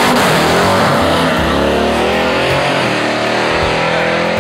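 Supercharged 6.2-litre Hellcat Hemi V8 in a 1968 Dodge Charger at full throttle, launching down a drag strip. Its pitch climbs, dips once about a second and a half in as it shifts up, then climbs again.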